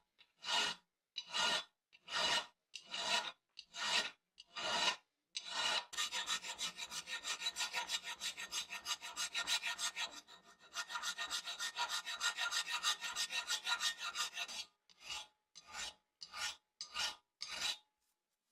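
Rasping strokes of an abrasive worked by hand against a part, about one stroke a second at first, then a fast run of about five strokes a second with a short pause in the middle, then slow separate strokes again near the end.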